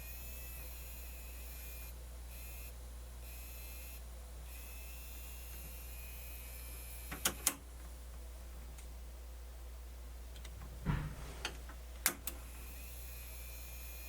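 A few sharp clicks and knocks from handling the cassette deck's tape mechanism: a pair about halfway through and a cluster near the end, over a steady low hum.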